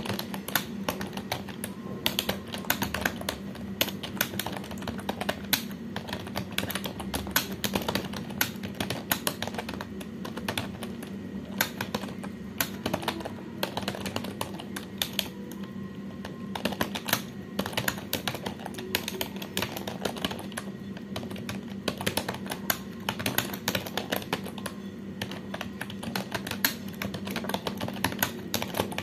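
Continuous fast typing on a computer keyboard: a dense, uneven run of key clicks at about three to four keystrokes a second, with a low steady hum underneath.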